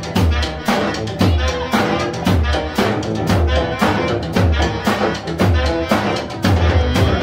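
Band playing live: a drum kit keeping a fast, busy beat of snare and kick hits, with a sustained melody line over it.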